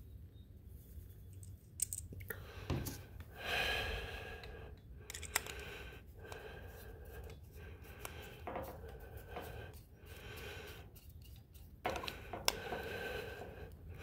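Small clicks and scrapes of a screwdriver turning a jet back into a Honda EU2000i carburetor, with the parts being handled in the hand. A few sharp clicks stand out, one near the start and one near the end.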